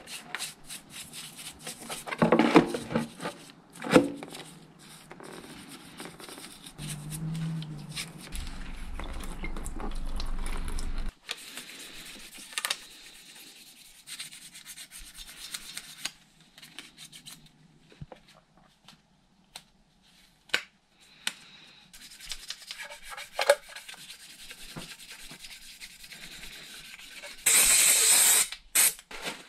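Stiff brush scrubbing carbon-caked intake manifold parts wet with petrol, with a few sharp knocks, then sandpaper rubbing in short strokes over a metal EGR flange to take off corrosion and residue. Near the end, a burst of brake-cleaner aerosol spray hisses for about a second and a half.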